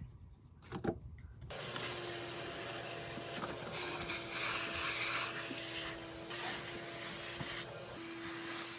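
A single knock, then a small motor-driven machine starts about a second and a half in and runs steadily with a constant hum.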